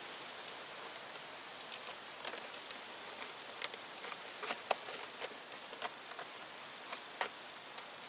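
A run of irregular light clicks and taps over a steady hiss, a few louder ones in the middle.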